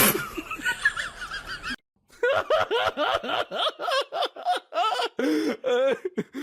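A person laughing in quick repeated bursts, after a brief break about two seconds in.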